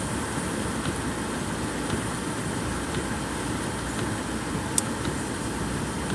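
Rain falling on a car's roof and windscreen, heard from inside the cabin as a steady hiss with faint scattered ticks. One sharp click about three-quarters of the way through.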